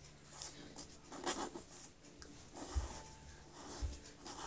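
Origami paper rustling and scraping softly as fingers fold it and smooth it flat against a board. There are a few scattered rubs and two dull knocks about a second apart near the end.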